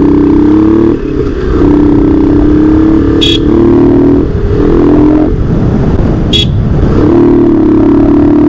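Motorcycle engine running while riding, a steady drone that drops off and shifts in pitch briefly a few times. Two short high chirps cut in twice.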